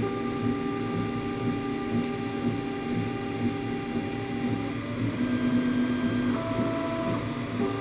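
Stepper motors of an Ultimaker-clone 3D printer whining as the axes move, the whine holding steady tones that jump to new pitches several times as the moves change.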